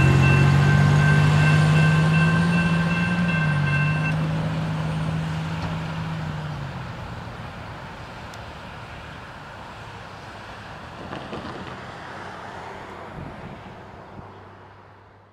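Double-stack intermodal freight cars rolling past on steel rails, with steady high-pitched tones and a low hum over the first four seconds. The rolling noise fades away over about eight seconds as the tail end of the train goes by, leaving faint outdoor background noise that fades out at the end.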